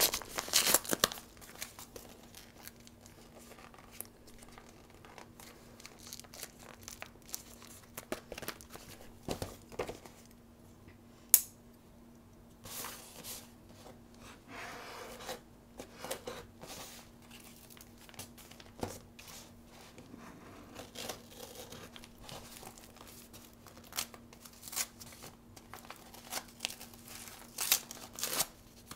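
Paper mailer envelope being torn open along its tear strip and handled, with scattered tearing, crinkling and rustling. A single sharp snap about eleven seconds in is the loudest sound, over a faint steady hum.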